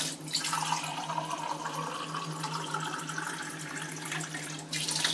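Kitchen tap running water into a mug, with a faint tone that rises as the mug fills; the flow stops about four and a half seconds in.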